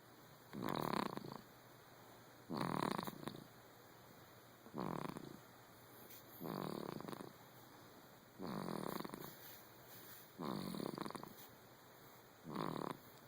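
Newborn baby snoring in its sleep, with regular snores about one every two seconds, seven in all.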